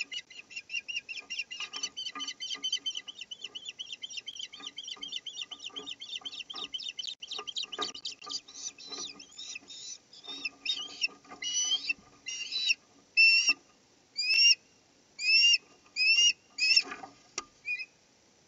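Osprey calling at the nest: a fast, unbroken run of high chirps, about five a second, for the first half. These give way to slower, louder, separate rising whistles, more than one a second. It is the excited calling of a nesting osprey as its mate arrives with a fish.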